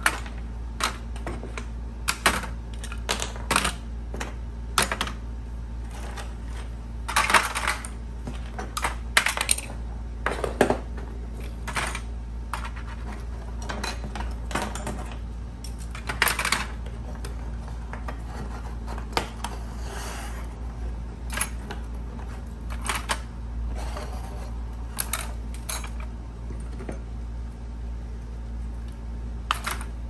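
Screws and small metal lock parts clinking and clattering as they are handled and dropped into containers: irregular sharp clinks, some ringing briefly, over a steady low hum.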